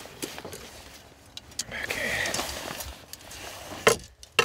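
Handling noise as a muskrat spring-clip trap is worked in gloved hands, ending in two sharp clicks about half a second apart near the end as the trap is reset.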